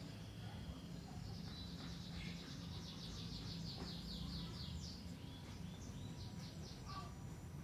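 A bird singing a fast trill of repeated high notes for about four seconds, followed by a few shorter chirps near the end, over a steady low background hum.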